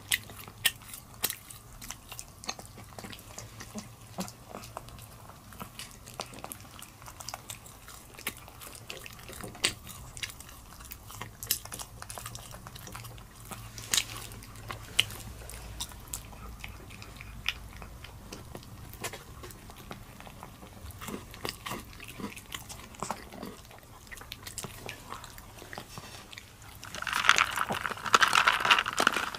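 Pomeranian eating small treats from a plate, a long run of quick chewing and licking clicks. Near the end, a louder rattling scrape as a straw stirs chocolate balls and cookie pieces in a plastic cup of chocolate drink.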